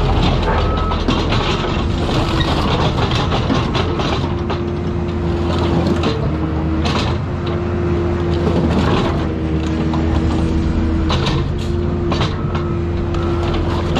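Excavator at work on a car: a steady diesel engine drone under a held whine that shifts slightly in pitch, with repeated clanks and crunches of metal being torn and crushed.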